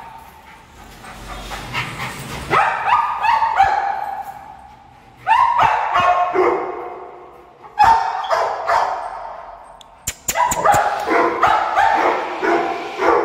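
Dogs whining and yelping in four bouts a few seconds apart, each a run of high, wavering cries.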